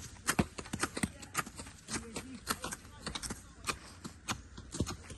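Footsteps on dry ground and vegetation: irregular clicks and light knocks, several a second.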